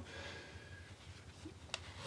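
Quiet room tone with a faint steady hum and a single faint click near the end.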